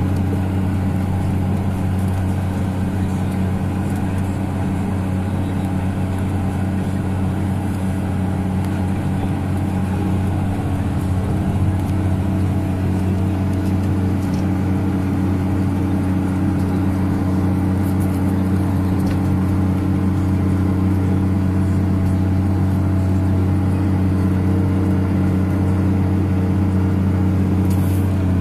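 Case IH 535 Quadtrac tractor's diesel engine running steadily under load while ploughing: a continuous deep, even drone.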